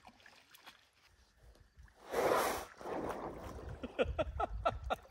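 Lake water splashing and sloshing as a man wades in off a rock ledge, with a louder rush of water about two seconds in and a run of small splashes after it.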